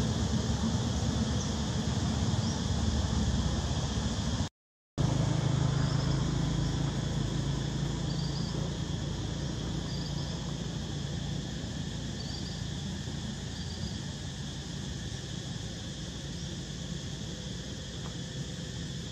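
Steady outdoor insect drone, with a low rumble underneath and a few faint short chirps. The sound cuts out completely for about half a second, roughly four and a half seconds in.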